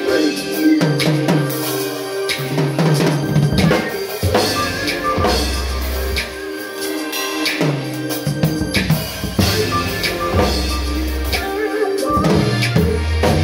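Acoustic drum kit played with sticks along to a recorded song: kick drum, snare and cymbal hits over the track's music and deep bass line.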